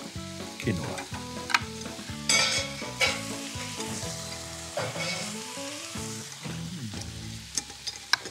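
Food sizzling in a frying pan while being stirred, the hiss swelling a few times, with a few sharp clicks of utensils.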